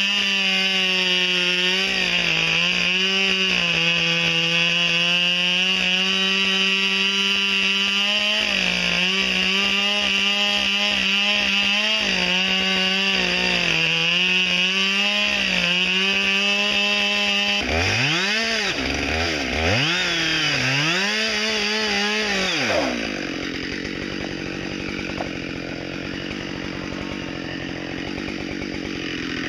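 Two-stroke gasoline chainsaw ripping lengthwise through a large log to mill boards, running at a steady high pitch under load. At about 18 s it comes out of the cut, is blipped up and down several times, and then drops to a low idle for the last six seconds or so.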